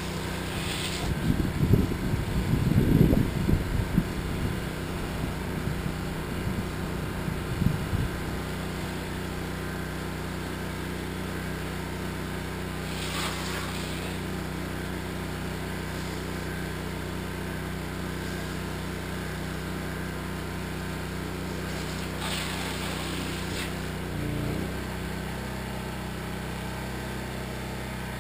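Gas-engine pressure washer running steadily while its wand sprays a jet of water and cleaning solution; the engine note shifts slightly about 24 seconds in.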